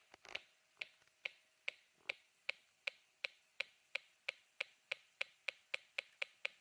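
Snap Circuits 'electronic raindrops' circuit clicking through its speaker: short drip-like ticks, about two a second at first, coming steadily faster as the adjustable resistor is turned up.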